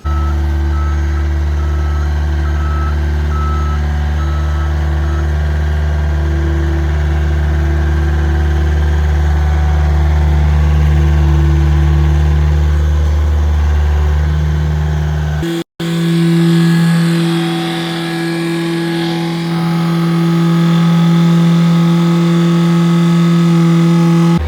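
A vehicle engine running steadily, with a short run of beeps in the first few seconds like a reversing alarm. About two-thirds of the way through it cuts off abruptly, and a different steady engine hum follows.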